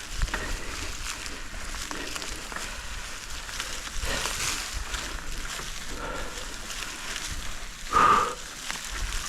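Vitus Mythique mountain bike being ridden on a dirt trail: steady rolling noise from the tyres and drivetrain, with a brief louder sound about eight seconds in.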